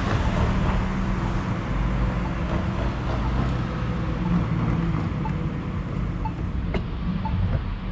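Steady road traffic rumble heard from a bicycle on the road, with a single short click about three-quarters of the way through.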